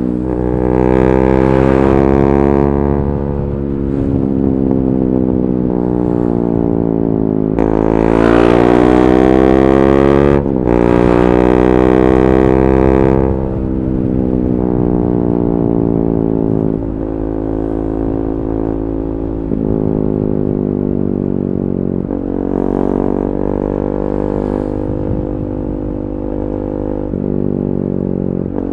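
KTM 390 Duke's single-cylinder engine through an Akrapovic slip-on exhaust with the catalytic converter removed. The revs climb and ease off twice, with a sudden break in the sound about ten seconds in. After that the engine runs steadily at lower revs.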